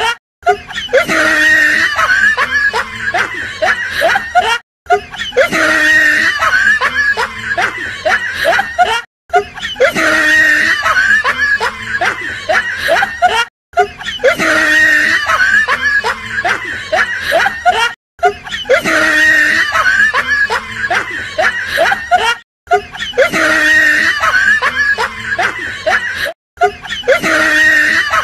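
Laughter sound effect, loud snickering and cackling, looped over and over with a brief break about every four and a half seconds.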